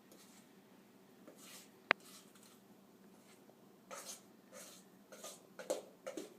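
A utensil scraping brownie batter out of a mixing bowl into a baking dish: several short, faint scrapes, with one sharp click about two seconds in.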